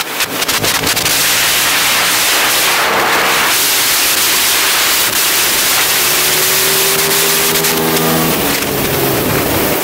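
Aprilia SXV 550 supermoto's V-twin engine, through a full titanium Akrapovič exhaust, running hard at track speed, heard onboard under heavy wind rush. The wind dominates for the first few seconds; later the engine note comes through more clearly, holding a steady pitch.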